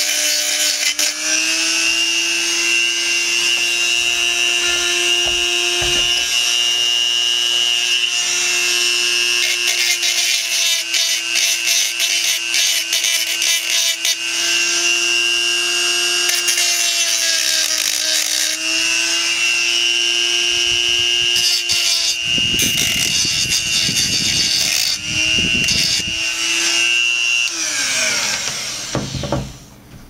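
Hand-held rotary tool with an abrasive grinding stone running at a steady whine while it grinds the edge of a Zippo hand warmer's filler opening smooth, deburring it so the packing can go in without cutting fingers. A rasping grinding noise comes and goes as the stone bears on the metal. Near the end the motor winds down and stops.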